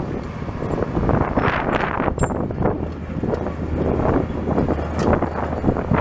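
Cummins 8.3-litre six-cylinder diesel engine of a 1994 Hyundai Robex 290LC excavator running under hydraulic load while the machine swings and lifts its boom: a steady low drone with irregular surges of noise over it.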